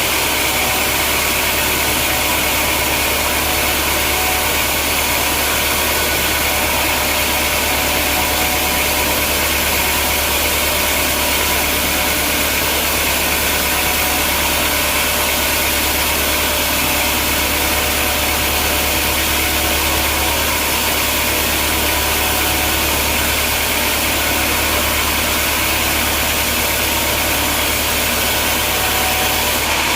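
Sawmill machinery running steadily: a low machine hum under a constant noisy whir.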